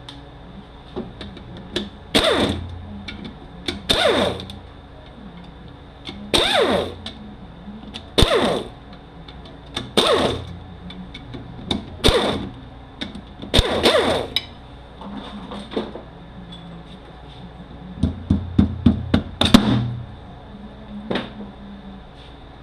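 Sharp metal knocks on a Mercedes 722.9 automatic transmission during teardown, one about every two seconds, each ringing briefly. Near the end comes a quick run of lighter taps.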